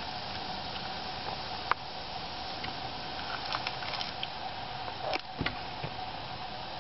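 Leopard frogs shifting and hopping on dry leaf litter: a few scattered light taps and rustles, the loudest about five seconds in, over a steady hiss with a faint hum.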